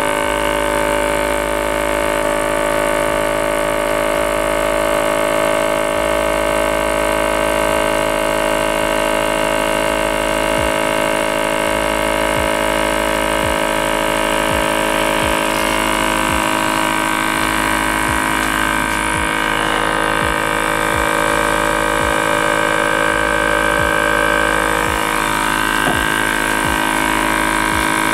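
Small electric vacuum pump running with a steady hum, pulling suction through a side-arm filter flask during vacuum filtration.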